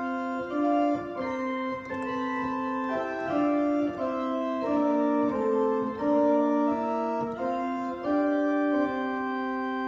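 Organ playing a hymn tune in sustained chords on the great manual, the fuller, louder keyboard used for the first verse, with the chords changing about once a second.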